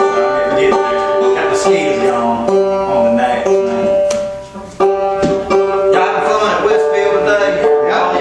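Old-time string band of five-string banjo, fiddle and acoustic guitar playing together, with bowed fiddle notes held over picked banjo and guitar. The music dips briefly a little past halfway and comes back in sharply.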